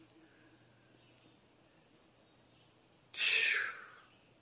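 Steady high-pitched chorus of crickets. About three seconds in, a brief louder noise falls in pitch and fades within about half a second.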